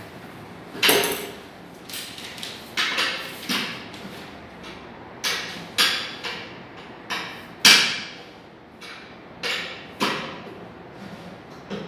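Irregular knocks and clunks from sofa parts being handled and fitted together, about a dozen sharp hits with a short ring, spaced unevenly, the loudest a little past the middle.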